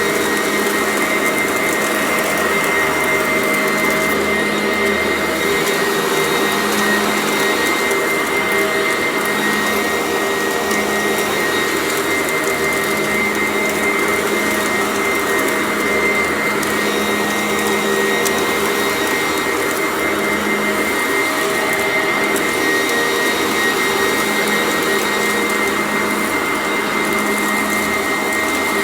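Sanitaire vacuum cleaner running steadily while vacuuming, a constant motor whine over the rush of airflow.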